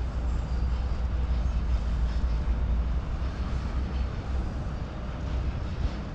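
Large Hyundai 800LC-7A excavator's diesel engine running, a steady deep rumble.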